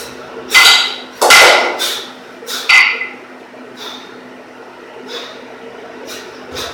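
Two 12 kg cast-iron kettlebells clanking together and against the body as they are cleaned into the rack, with three loud metallic knocks that ring briefly in the first three seconds. Fainter knocks follow as the bells are driven overhead.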